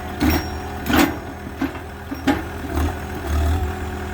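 Engine of a post-hole drilling rig idling steadily, with five or so sharp knocks or clanks through it.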